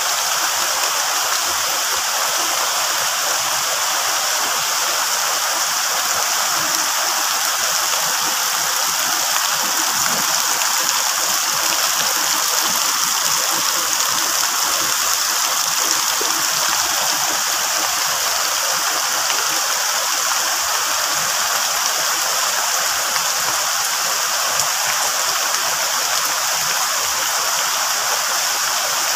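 Heavy rain falling steadily on the leaves of a large tree and banana plants: a dense, even hiss with no breaks.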